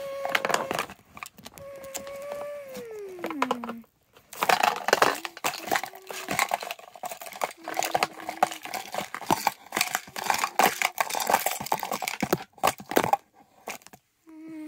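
A plastic trash bag crinkling and rustling as it is pushed into a toy garbage truck's hopper, stopping near the end. Before that, a humming voice holds a tone and then slides down in pitch.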